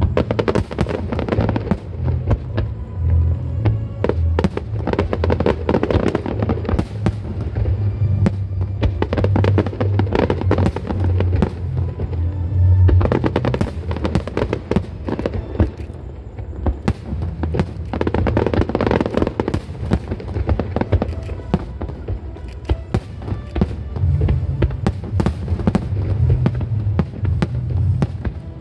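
Fireworks display: many rapid bangs and crackles of bursting fireworks, over music with a heavy bass line.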